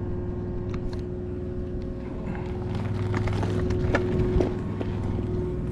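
Bicycle ride picked up by a body-mounted GoPro: steady rumble of wind on the microphone and tyres on pavement. A few clicks and rattles come through about halfway.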